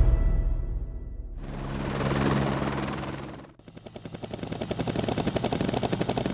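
Trailer music dying away, then a brief whooshing swell, then a fast, even chopping pulse that starts about halfway through and grows steadily louder.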